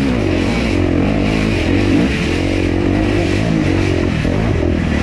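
Suzuki RM-Z250 four-stroke dirt bike engine revving up and down as it is ridden.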